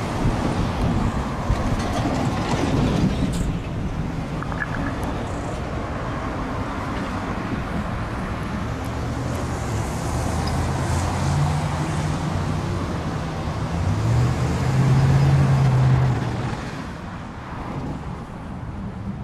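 Steady road-traffic and vehicle rumble mixed with the low engine drone of an approaching Long Island Rail Road diesel train. The drone steps up in pitch in the second half, then the sound level drops suddenly near the end.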